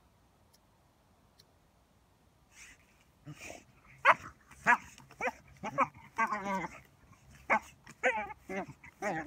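A dog digging in sand, letting out a run of short excited yips and whines that bend up and down. They start about three seconds in, just after a few scratchy bursts of its paws in the sand.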